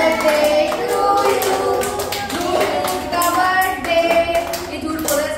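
Children clapping their hands over and over while singing together in high voices.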